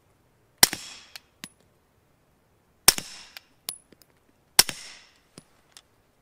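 Three suppressed pistol shots from a Walther PDP SD Pro firing Fiocchi subsonic ammunition, unevenly spaced about two seconds apart, each followed by a short tail and lighter clicks of the action cycling. After the last shot the slide locks back prematurely with subsonic rounds.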